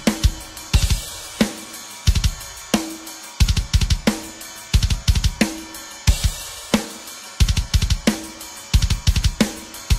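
Background music: a driving drum-kit beat with bass drum, snare and cymbals repeating at a steady tempo.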